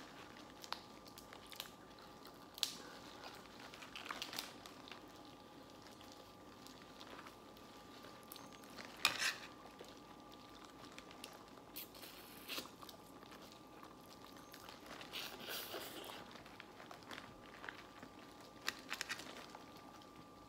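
Crab shells being cracked and picked apart by hand while eating a seafood boil: scattered small cracks and clicks, the sharpest about nine seconds in, over a faint steady hum.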